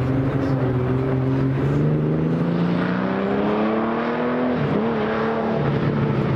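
Vintage race car engine running at steady revs, then revving up in a long rising note as the car accelerates. About four and a half seconds in the pitch drops sharply, and the engine settles to a steady, lower note.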